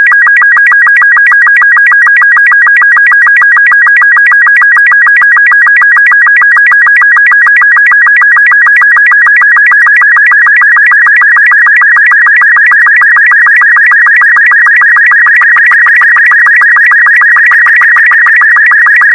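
A loud, steady, high electronic tone that pulses rapidly and evenly, like a warbling beep, holding one pitch throughout.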